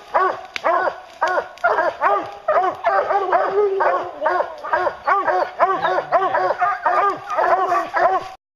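A pack of bear hounds barking at the base of a tree, several at once in fast, rhythmic tree barks: the sound of hounds baying a black bear they have treed. The barking cuts off abruptly near the end.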